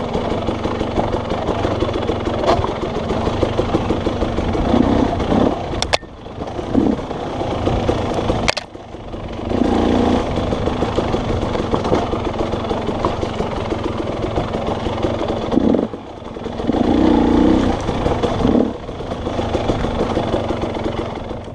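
Dirt bike engine running over rough trail, the throttle opening and closing in repeated surges, with a few sharp knocks in between.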